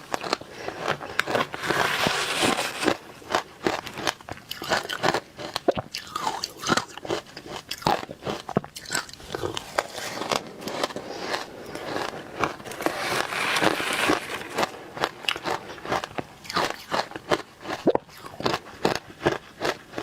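Close-miked biting and chewing of frozen matcha powdered ice: a steady run of crisp crunches, with two longer, denser crunching bites, one about two seconds in and one about two-thirds of the way through.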